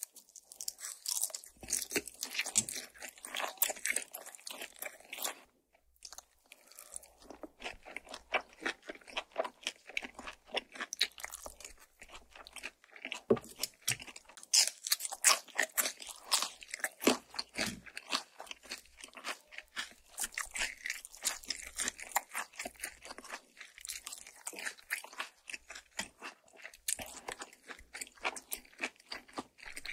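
Close-miked chewing of crispy air-fried makchang: wet, crackling crunches that go on continuously, with a brief pause about five and a half seconds in.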